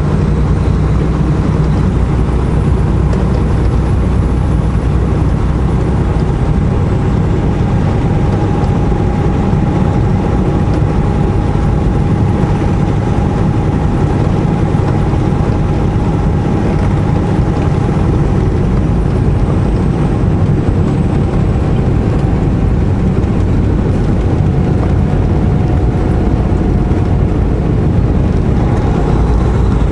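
Semi truck driving steadily: engine and road rumble with a faint thin whine above it.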